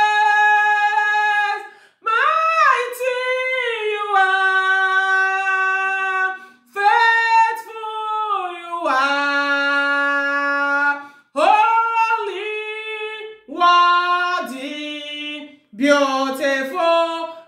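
A woman singing a worship song solo, in drawn-out phrases of long held notes with brief breaths between them.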